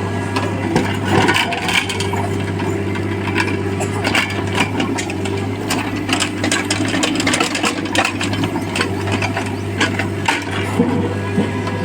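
Diesel engine of a backhoe loader running at a steady speed, with frequent metallic clanks and rattles from the machine's arm and bucket.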